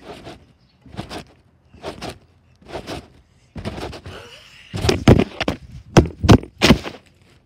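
Trampoline mat thumping under a jumper, about one bounce a second. From about halfway through come a denser run of louder knocks and handling noise as the camera on the mat is knocked about and falls.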